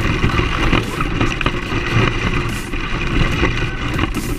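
Team Associated SC10 brushless short-course RC truck driving across grass, heard from a camera mounted on the truck: a steady rough rumble of the motor, drivetrain and tyres over the lawn that swells and dips as it goes.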